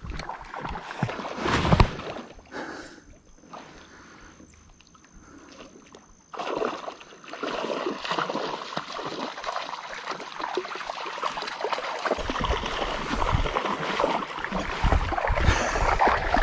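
Water splashing and sloshing in a shallow river: a few louder splashes in the first two seconds, then steady sloshing and churning that starts suddenly about six seconds in and grows louder toward the end.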